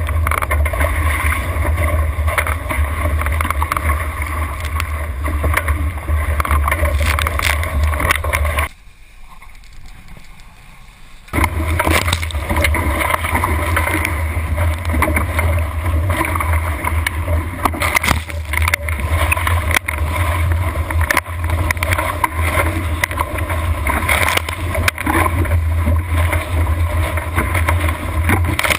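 Wind buffeting the microphone and water rushing and splashing along the hull of a sailing catamaran under way, with a strong low rumble. The noise drops away sharply for about two and a half seconds about nine seconds in, then comes back.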